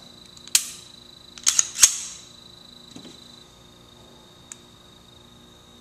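Smith & Wesson M&P 2.0 9C pistol being worked by hand and dry-fired: a sharp metallic click about half a second in, a quick run of louder action clicks around one and a half to two seconds, then faint ticks near three and four and a half seconds. The trigger reset gives only a very faint click, which the owner calls pure garbage.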